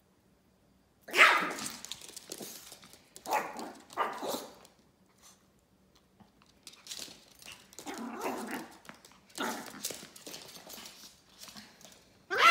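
A Yorkshire terrier barking in play: one sharp bark about a second in, two more around three and four seconds, a run of barks from about seven to ten seconds, and a loud bark right at the end.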